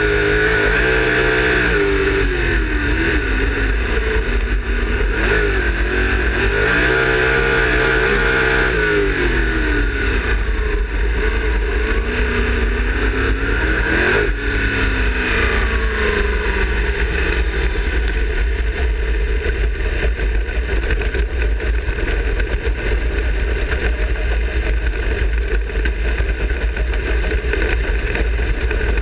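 360 sprint car's V8 engine heard from inside the car, revving up and down several times in the first half, then running steadily at speed for the rest.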